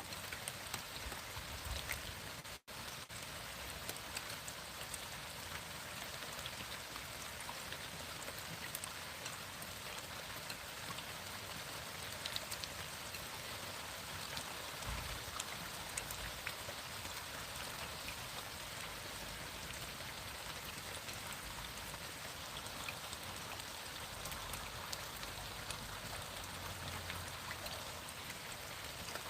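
Steady rain falling, an even hiss dotted with many small drop ticks. The sound cuts out for an instant about two and a half seconds in.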